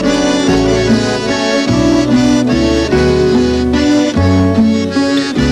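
Instrumental break of a slow waltz-time song, led by accordion with a bass line beneath, no voice.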